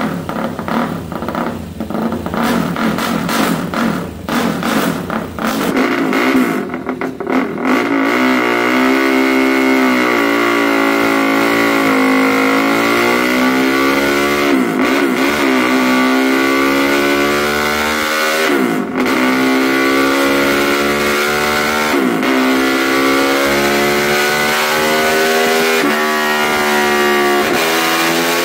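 KTM drag bike's engine being revved: choppy, uneven blips of the throttle at first, then held at high revs from about eight seconds in, its pitch wavering, with several brief dips and recoveries.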